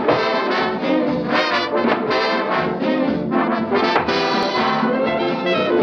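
Orchestral cartoon score, with brass such as trombones and trumpets carrying the tune.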